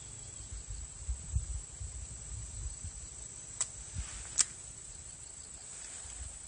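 Steady high-pitched insect chorus, with two sharp clicks a little under a second apart about halfway through, the second louder, over a low uneven rumble.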